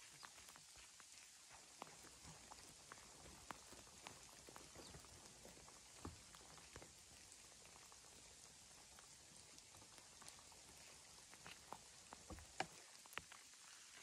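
Light rain: scattered drops pattering and ticking on leaves and ground over a faint steady hiss, with a few louder drips near the end.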